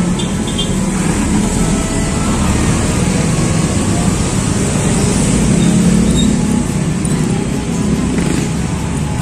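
Street traffic: passing vehicles' engines and tyres in a steady low rumble, swelling a little about five to six seconds in.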